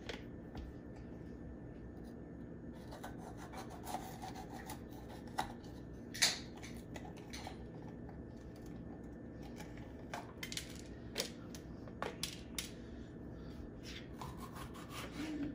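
Kitchen knife cutting bell peppers on a wooden cutting board: scattered taps of the blade on the board and soft cutting sounds over a steady low hum.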